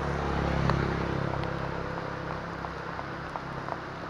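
Motorbike engine running with a steady low hum that is loudest about a second in, then eases off. It sits over the hiss of heavy rain, with scattered light ticks.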